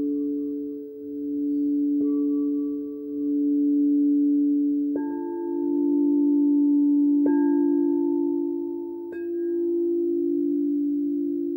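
Frosted crystal singing bowls ringing in overlapping sustained tones that swell and fade slowly. A bowl is struck with a mallet about two seconds in, then three more strikes between about five and nine seconds in add higher ringing notes.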